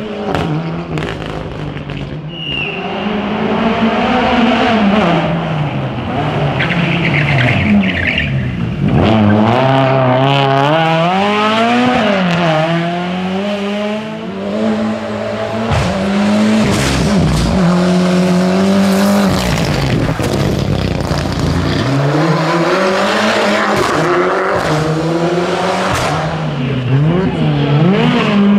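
Rally car engines revving hard through the gears, their pitch climbing and dropping again and again, with tyre squeal.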